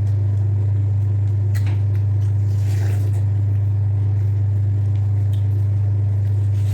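A loud, steady low hum that never changes, with a few faint clicks and knocks over it.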